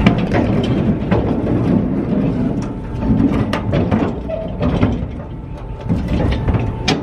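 Red steel engine stand being handled in a pickup truck bed: a string of metal knocks and clanks as its frame and casters are tilted, shifted and set down on the bed, over a steady low rumble.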